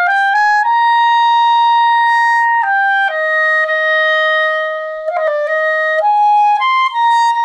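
Clarinet playing a short phrase of held notes in its upper register, each note steady, with two long notes of about two seconds. It is a test of the instrument right after its joints were realigned so the key closes without extra finger pressure, and the notes come out well.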